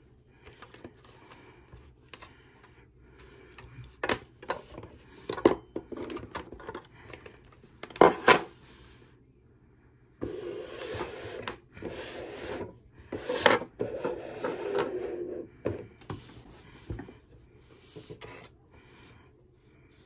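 A wet wipe rubbing and scrubbing over a rotary telephone's body, cords and dial, with irregular clicks and knocks from the parts and cords being handled. A few sharper knocks stand out, and there is a longer stretch of steady rubbing about halfway through.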